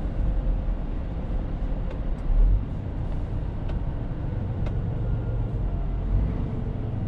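Scania R450 truck's six-cylinder diesel engine running steadily while driving, heard from inside the cab with road noise. A brief louder low rumble comes about two and a half seconds in, and a few faint clicks are heard.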